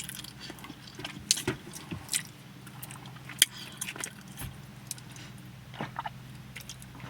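A person chewing food, with scattered wet mouth clicks and smacks over a faint steady low hum.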